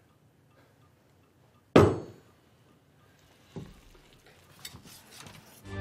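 A sharp knock on a dinner table with a clink of tableware, about two seconds in, followed by a softer knock a couple of seconds later.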